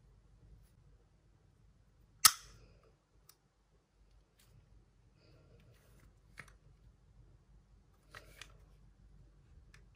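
A DJI OM 4 gimbal and its magnetic phone clamp being handled: one sharp, loud click a little over two seconds in, then light rustling and a few softer clicks of plastic and metal parts.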